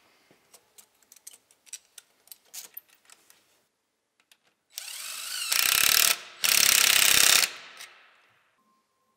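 Cordless driver running a hose clamp's screw tight on the charge air cooler intake piping, in two short runs a little past the middle. Before them, light clicks and taps of hands fitting the clamp.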